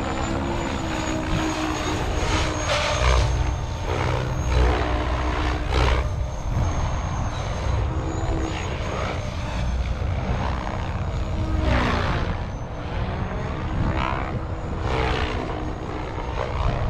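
SAB Goblin RAW 580 electric RC helicopter in flight: a rotor hum and a high whine from the brushless motor and drivetrain. The pitch sweeps up and down several times as it passes and manoeuvres.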